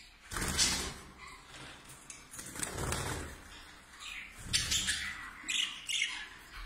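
Budgerigars fluttering their wings inside wire cages, in several short bursts.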